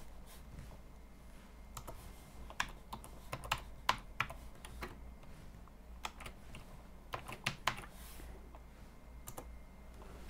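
Computer keyboard being typed on: irregular runs of key clicks with short pauses between them, over a steady low hum.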